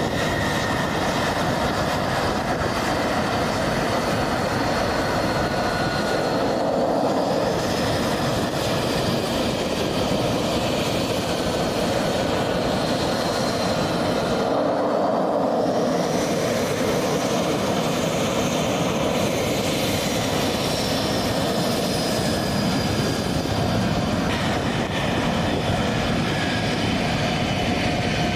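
F-35B Lightning II's Pratt & Whitney F135 jet engine running at taxi power: a steady jet rumble with a high turbine whine that drifts slowly up and down in pitch.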